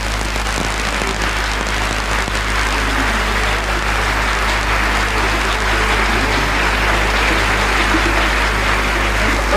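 Concert audience applauding steadily at the end of a song, with a low steady hum from the old live recording underneath.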